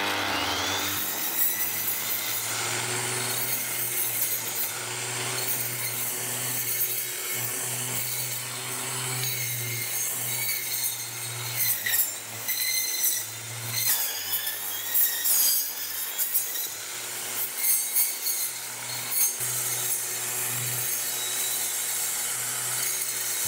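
Tool work: rasping, sawing-like strokes over a steady low hum.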